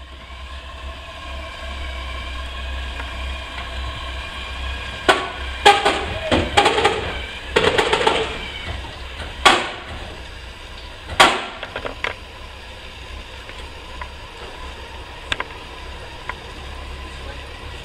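Heavy motorcycle, a Honda Gold Wing GL1500, being wheeled from a tail lift into a truck's cargo box: a cluster of knocks and clunks about a third of the way in, two sharp bangs soon after, then a few faint ticks. A steady low hum runs underneath.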